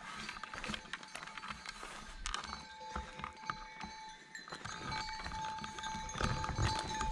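Flock of sheep with neck bells clanking and ringing: a jumble of bell tones and short clinks, growing louder toward the end as the flock comes closer.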